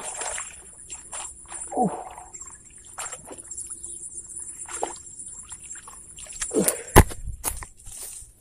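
Steady high-pitched chirring of crickets or other insects, with scattered clicks and short knocks over it. The loudest is a sharp knock about seven seconds in, and two short falling sounds come near the start.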